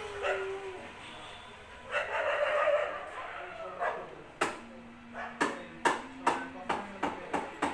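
A dog barking: a quick, irregular run of short sharp barks starting about four seconds in.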